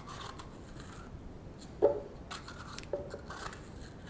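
Pieces of red bell pepper dropping into a plastic blender jar, two soft thuds about a second apart, with faint rustling as the peppers are torn apart by hand.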